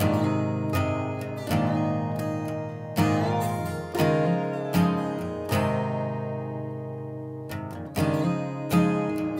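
Background music: acoustic guitar, strummed and plucked, with chords struck every second or so and left to ring.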